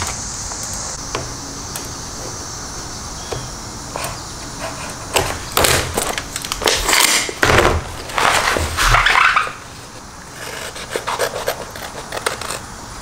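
A sheet of vinyl wrap film rustling and crinkling in several bursts as it is handled and measured, then scissors cutting through the vinyl near the end.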